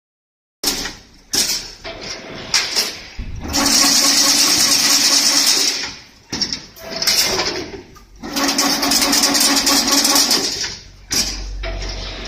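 Automatic chain-link fence weaving machine running through its cycle: a loud, steady whirring stretch of a few seconds while the wire is wound into a spiral, alternating with sharp clanks and clicks, twice in a row.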